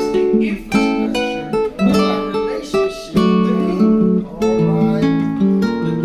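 Acoustic guitar music: chords strummed and picked in a steady run of notes.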